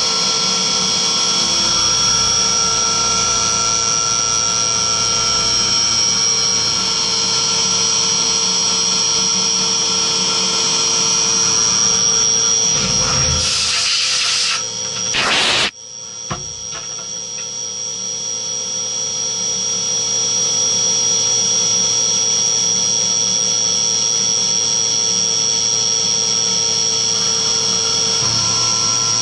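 CNC vertical milling machine cutting aluminium with an end mill under flood coolant: a steady high spindle whine over the noise of the cut. About halfway there is a brief rush of noise, then the sound drops out suddenly and builds back up over several seconds.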